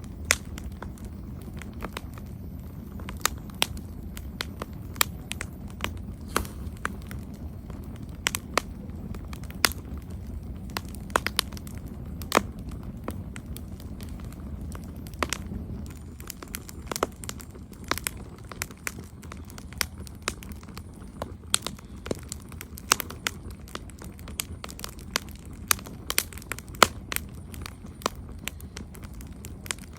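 Campfire crackling: irregular sharp pops and snaps of burning wood, several a second at times, over a steady low rumble of the flames.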